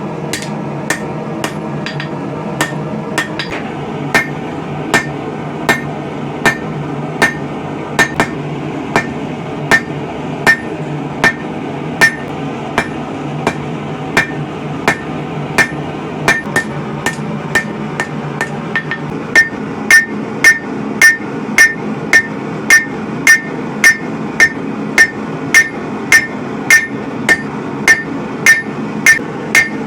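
Hand-forging: a hammer striking hot steel on an anvil in a steady rhythm, with a ringing note on each blow, over a steady low rush of the forge fire. The blows come about one every three quarters of a second, then grow faster and louder, with a brighter ring, about two-thirds of the way through.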